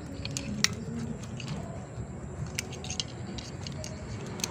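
Flat-blade screwdriver working at the snap ring of a propeller-shaft universal joint, prying it out of the yoke: scattered sharp metal clicks and scrapes, the loudest about half a second in.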